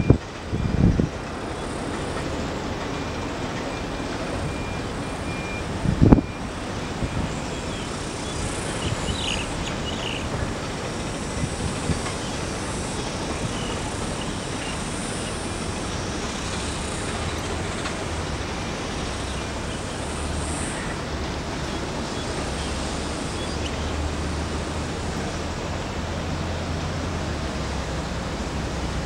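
Steady outdoor noise with a low rumble, broken by a couple of brief low thumps about a second in and about six seconds in.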